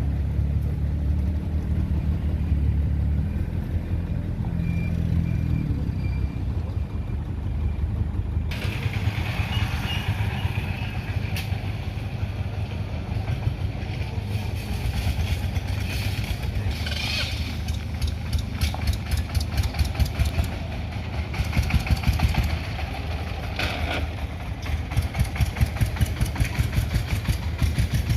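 Single-cylinder diesel engine of a three-wheeled farm vehicle running. About eight seconds in, a rattling, clattering noise joins it, and in the second half the engine's fast, even beat stands out clearly.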